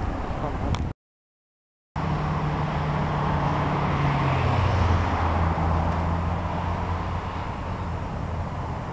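Car traffic passing on a city street, with a low engine drone that dips in pitch and is loudest around the middle. About a second in, the sound cuts out completely for about a second.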